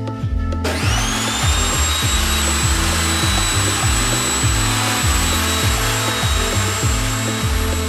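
Table saw switched on about half a second in: the motor whines up to speed, then runs steadily. Background music with a steady beat plays throughout.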